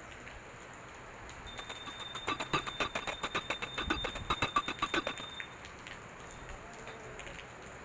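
Steady rain falling, with a rapid run of ticks, about ten a second, for about three seconds in the middle over a faint high steady whistle.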